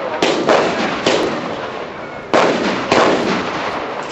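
Aerial firework shells bursting overhead in a string of about five loud bangs, each followed by a rolling, fading echo.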